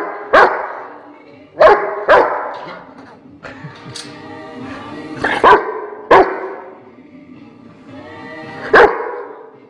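A dog barking loudly, about seven sharp barks in short groups of one to three, several seconds apart.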